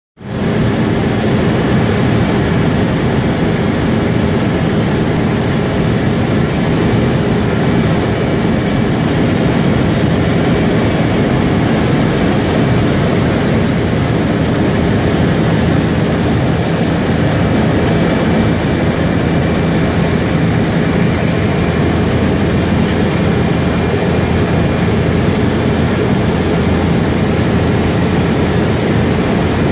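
Single-engine floatplane's engine and propeller running with a steady, loud drone, heard from inside the cabin on the approach to a water landing.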